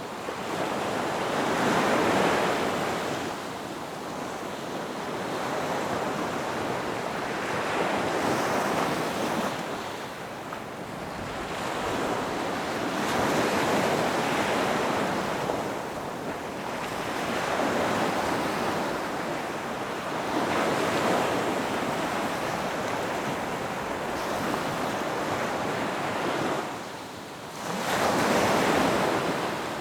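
Ocean surf, waves washing in and ebbing in slow swells every several seconds, with a brief lull and then a loud wave near the end.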